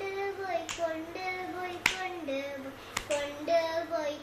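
A voice singing a Malayalam poem in long held notes, stepping between pitches, with a sharp hand clap about once a second keeping time.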